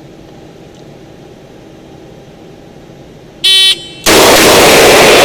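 A shot timer's short electronic start beep about three and a half seconds in, followed half a second later by a very loud revolver shot that rings on and fades slowly.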